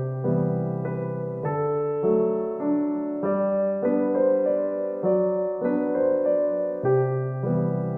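Background piano music: a gentle, steady pattern of sustained notes and chords changing about every half second.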